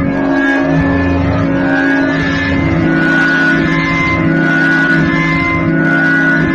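Dense, distorted MIDI noise music: loud, droning organ-like tones held at several pitches at once over a harsh noisy wash. Higher notes shift every second or so. The piece has been pitch-shifted through a voice-changer effect.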